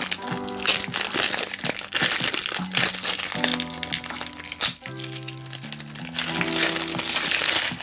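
Plastic shrink-wrap crinkling and tearing as it is peeled off a CD jewel case, loudest near the end. Background music plays throughout.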